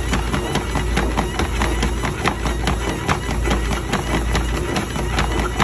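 A dogPACER dog treadmill running with a steady low hum from its motor and belt, under a fast, even patter of a retriever's paws striking the moving belt, about six or seven footfalls a second.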